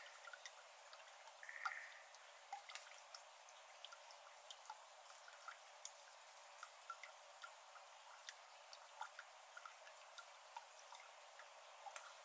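Faint, irregular water drops falling one by one into shallow standing water in a flooded iris bed, over a light steady hiss. One brief, louder sound comes about a second and a half in.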